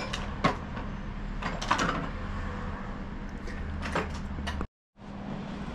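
Steady low hum with a few scattered knocks and a scraping sound, as of tools and parts being handled on a workbench; the sound cuts out completely for a split second near the end.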